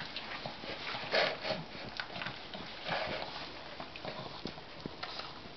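Small dog chewing and tearing at raw meat, with irregular crackling, smacking noises, louder about a second and three seconds in.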